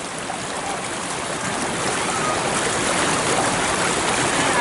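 Rushing water of a jungle stream: a steady wash of noise that grows a little louder.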